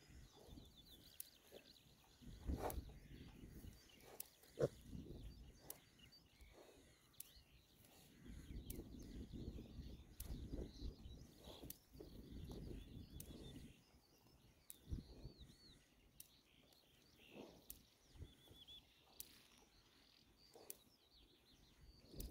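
Faint sounds of piglets grazing: scattered soft clicks of grass being torn and chewed. Faint bird chirps in the background and a low wind rumble on the microphone in the middle.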